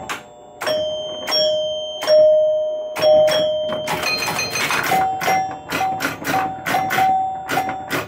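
Chimes of a 1976 Williams Grand Prix electromechanical pinball machine ringing as the game scores. A lower chime is struck about four times with long rings, then from about five seconds in a higher chime rings in quick repeated strikes. Sharp mechanical clicks run between the strikes.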